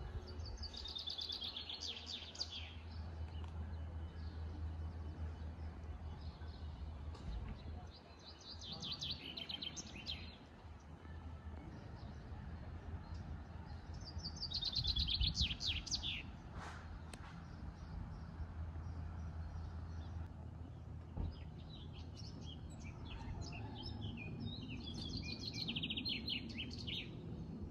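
A songbird singing in separate phrases every few seconds, each a quick run of high notes lasting about two seconds, over a steady low hum of outdoor background noise.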